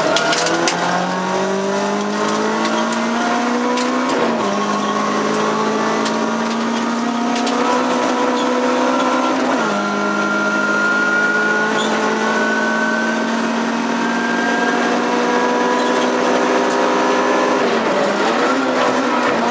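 Sprint-racing car's engine heard from inside the cabin, accelerating hard. Its pitch climbs steadily through each gear and falls at upshifts about 4 and 10 seconds in, with a brief dip near the end.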